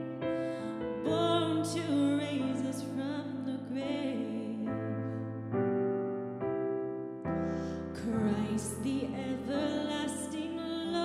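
A slow worship song: a voice singing over sustained piano chords that change every second or two.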